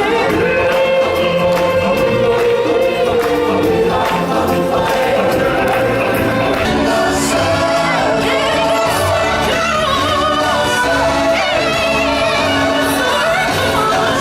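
Live stage show music: a group of singers in choir-like harmony over a backing track with a steady beat, with long held notes.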